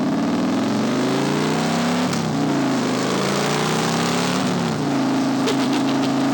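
Motorcycle V-twin engine pulling hard under acceleration. Its pitch climbs, drops sharply about two seconds in as it shifts up, rises and falls again, then holds steady near the end.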